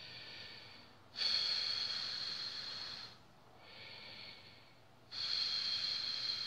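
A man breathing slowly and audibly through his nose: long, loud breaths beginning about a second in and about five seconds in, with softer breaths before and between them.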